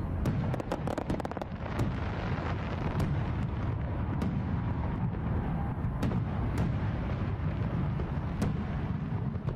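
Fireworks display: a continuous low rumble of bursts with many sharp crackles and pops scattered throughout.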